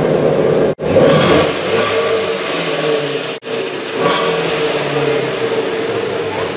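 2016 Shelby GT350's 5.2-litre flat-plane-crank V8 running, with short revs about a second in and again about four seconds in. The sound cuts out abruptly twice for a split second.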